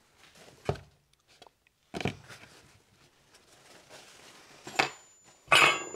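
A few separate clicks and knocks of small metal parts and tools being handled on a workbench. The last and loudest, near the end, is a metallic clink that rings briefly.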